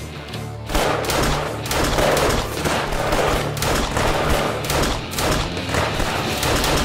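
Volley of gunfire from several revolvers, rapid overlapping shots starting under a second in, over a music score.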